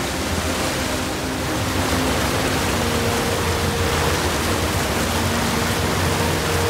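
Churning wake water rushing and splashing behind a moving motorboat, with a low steady hum underneath.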